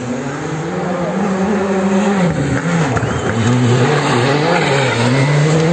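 Škoda Fabia Rally2 evo rally car's turbocharged four-cylinder engine approaching hard on a gravel stage. The revs rise and fall several times as the driver works the throttle and gears through the corners, and the car grows louder as it nears.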